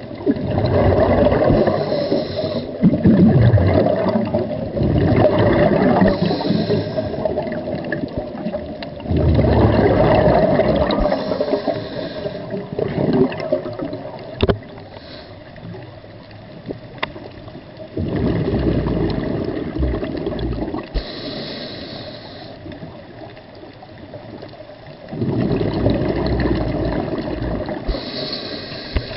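Scuba diver's exhaled bubbles through a regulator, heard underwater: long gurgling rushes of several seconds each, four or so, with quieter stretches between them.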